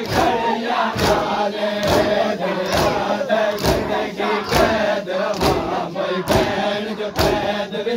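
Crowd of Muharram mourners chanting in unison while beating their chests (matam). Sharp hand slaps land together in a steady rhythm, a little faster than once a second.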